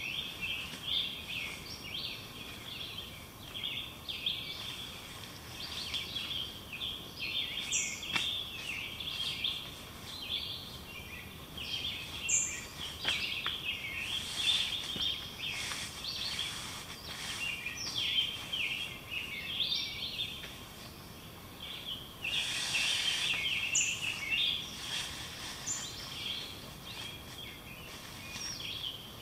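Woodland songbirds singing, a dense run of short chirps and trills that carries on throughout. A brief rustle cuts across them about two-thirds of the way through.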